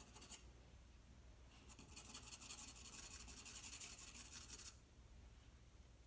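White charcoal pencil scratching over black drawing paper in rapid short shading strokes: a brief run at the very start, then a longer run from about one and a half seconds in until near five seconds.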